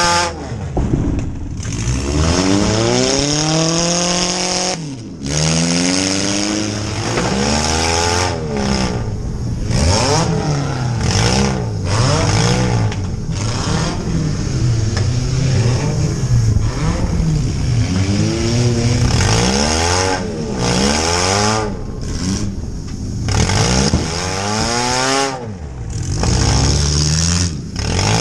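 Compact demolition derby car's engine, heard from inside the stripped cabin, revving up and falling back over and over as the throttle is worked, with a few brief drops when it is let off.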